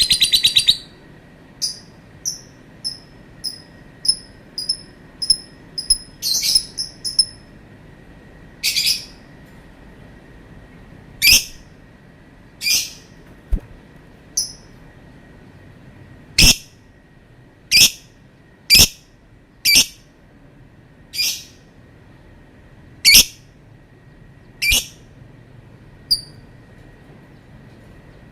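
Lovebird calling: a rapid trill that ends just after the start, then a run of short high chirps, about one and a half a second, for several seconds, then single sharp, shrill calls every one to two seconds.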